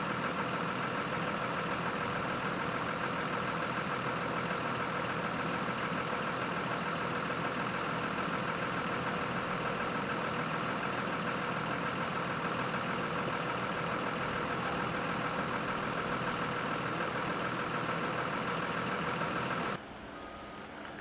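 Motor vehicle engine idling steadily, with a constant hum, until it cuts off abruptly near the end.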